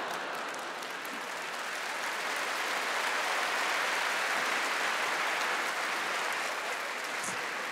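Large audience applauding a stand-up comedian's punchline. The clapping swells to a peak about halfway through and then eases off.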